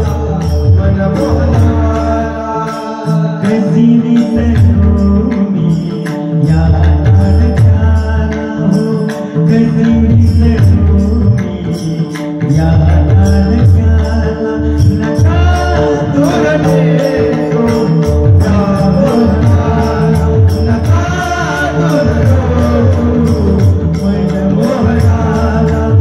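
Marathi devotional kirtan music: a male voice sings a gliding, ornamented melody over steady held notes. Low drum beats and the rapid, bright clicking of small hand cymbals (tal) keep the rhythm.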